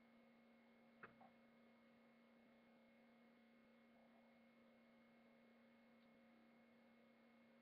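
Near silence with a faint steady electrical hum, broken once by a short click about a second in.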